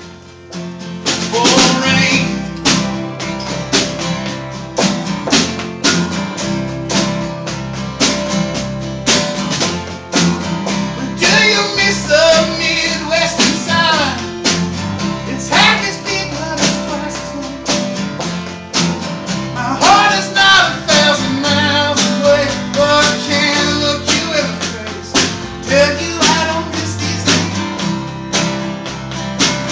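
A small live band playing a country-style song: strummed acoustic guitar, steel guitar with sliding notes, a snare drum keeping the beat, and a man singing.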